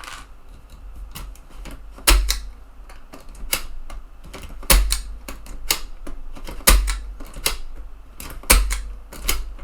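Mechanical clicks and clacks from the eject mechanism of a TEAC FD-235F 3.5-inch floppy drive being worked by hand while its faulty eject is adjusted. A heavier clack with a dull thud comes about every two seconds, with lighter clicks between.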